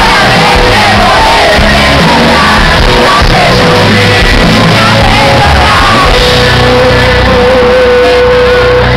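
Live pop band playing a Spanish-language ballad with a male lead singer singing into a microphone, loud. A long note is held over the last few seconds.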